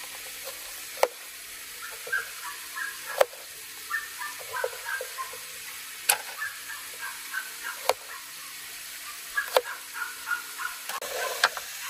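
Six sharp knocks or clicks, spread unevenly, as of cooking utensils being handled during meal preparation. Faint short high chirps run between them.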